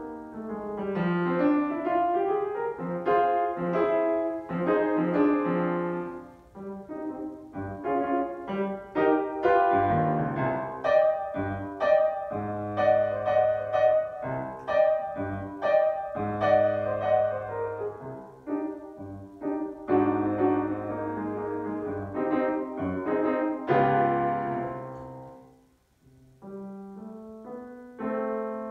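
Grand piano played solo: a continuous run of melody over held lower notes, with a brief pause near the end before the playing resumes.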